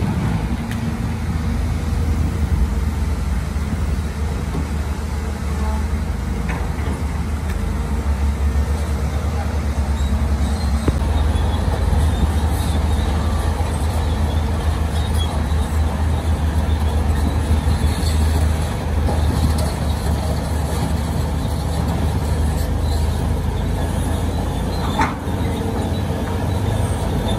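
Heavy diesel machinery running steadily at a gravel worksite, a deep engine hum.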